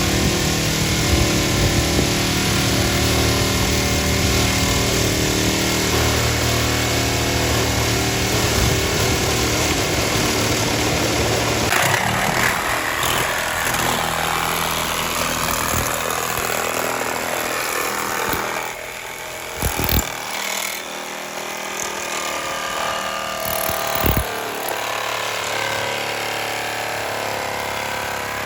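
A power tool running and cutting, its steady mechanical note changing about twelve seconds in, with two sharp knocks later on.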